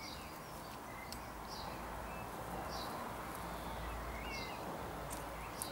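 Small birds chirping in the background: short high chirps repeating about once a second, with a few lower sliding notes, over steady low background noise.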